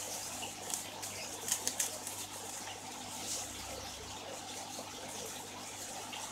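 Water bubbling and trickling steadily in a fish tub, with air welling up through the surface, broken by a few short sharp sounds around one and a half seconds in.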